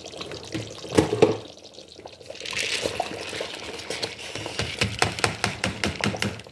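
Raw rice poured into a pot of boiling tomato-pepper stew and meat stock, the grains hissing and pattering into the liquid with many small clicks. Two sharp knocks come about a second in.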